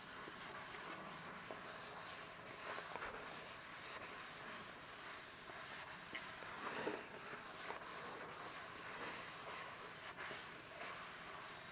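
Two soapy sponges rubbed and squeezed over a foam-covered metal sink: steady wet rubbing, with a few louder squishes a little past the middle.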